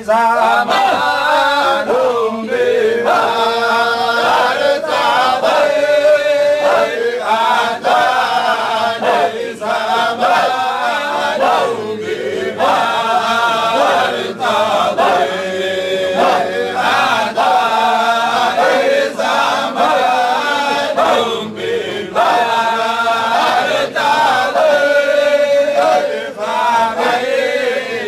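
Men's voices chanting a Sufi dhikr together in unison, the same short phrase repeated over and over.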